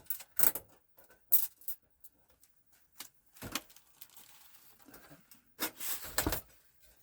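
Small metal screws and console parts clicking and clinking as they are handled during a PS4 Pro teardown, in separate sharp clicks with a denser, louder clatter with a dull knock about six seconds in.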